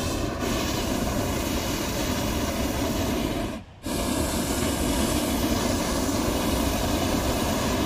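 Hot-air balloon's propane burner firing: a loud, steady rushing hiss that breaks off for a moment about three and a half seconds in, then resumes.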